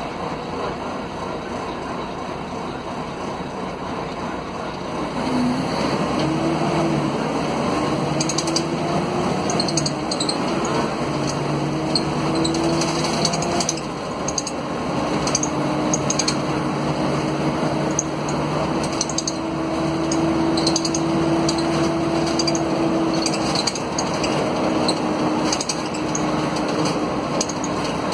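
Mercedes-Benz OM457LA inline-six turbodiesel of an articulated O500 UA city bus pulling hard at full throttle, heard from inside the cabin. The engine gets louder about five seconds in and rises in pitch. It dips once about halfway through at an upshift of the ZF Ecomat automatic, then climbs again and holds. Light rattling clicks from the interior fittings run throughout.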